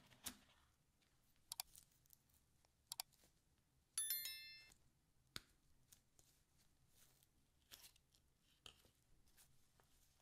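Faint rustling and light taps of white-gloved hands handling a paper-wrapped charging cable and paper inserts. Two pairs of sharp clicks come about one and a half and three seconds in, then a bright bell-like ding about four seconds in rings for about half a second: the sound effect of a subscribe-button and notification-bell animation.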